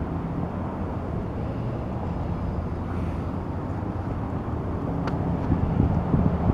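Steady low outdoor rumble with a faint low hum, and a couple of short knocks about five to six seconds in as hands and feet land on the exercise mat during burpees.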